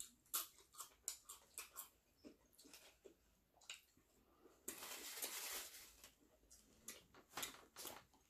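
Faint chewing and small mouth clicks of people eating fried chicken and biscuits, with a soft rustling hiss lasting about a second and a half near the middle.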